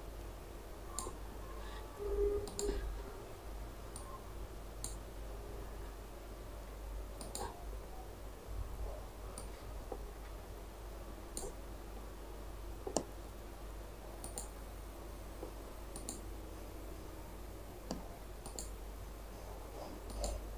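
Computer mouse clicking now and then, single sharp clicks every second or two, over a low steady hum.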